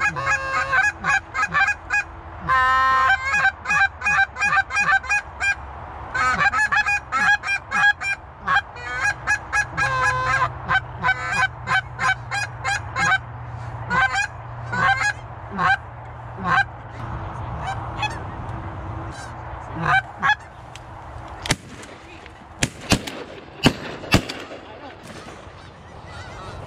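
A goose call blown in a rapid run of short honks and clucks for about twenty seconds, calling to geese. A few sharp cracks follow near the end.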